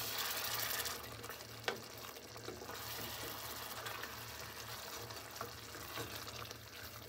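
Wooden spoon stirring a thick, simmering kulet sauce of spiced dried beef and eggs in a metal pot, the sauce bubbling and squelching. One sharp knock about a second and a half in.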